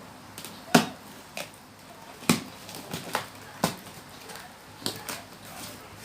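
Sharp knocks and taps at irregular intervals, about seven of them, the loudest about a second in and again a little after two seconds: hard objects being handled and set down during unboxing.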